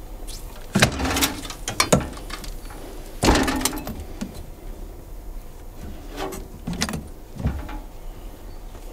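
Metal knocks and clanks from a knife-mounting lead-casting machine as its screw clamps and lever are worked and a freshly leaded table knife is released: a handful of sharp knocks, irregularly spaced.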